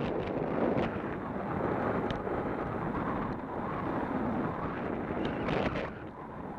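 Wind buffeting a moving action camera's microphone during a fast downhill run on snow, a continuous rough rushing noise, with the scraping hiss of sliding on packed, groomed snow and a few brief sharper scrapes.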